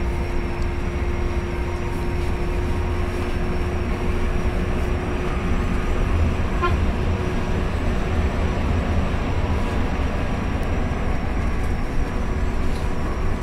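Coach bus running on the highway, heard from inside the cabin: a steady low rumble of engine and road noise with a faint constant hum.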